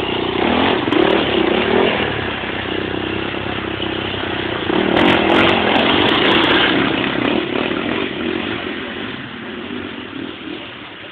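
Motocross dirt bike engines revving as the bikes ride past, swelling about a second in and again around five seconds in, then fading.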